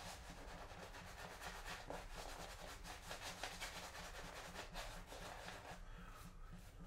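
Two-band badger shave brush scrubbing shave-soap lather on a face: a faint, quick, steady rubbing of wet bristles, as extra water is worked into the lather. The strokes ease off for a moment about six seconds in.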